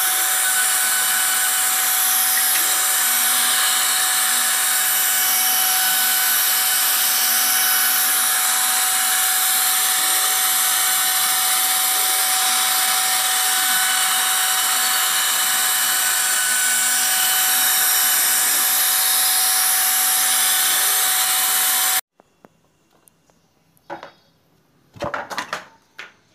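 CNC router spindle cutting grooves into melamine board: a steady high whine with the hiss of the cut, holding one pitch throughout. It stops abruptly about 22 seconds in, and a few short knocks and clatters follow near the end.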